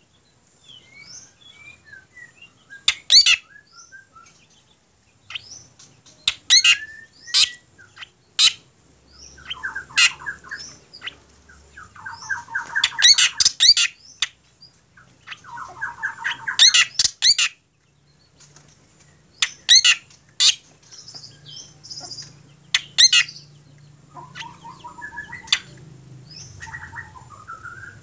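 Caged black drongo calling: loud, sharp notes mixed with fast, rattling trills of a second or two, in bursts with short pauses.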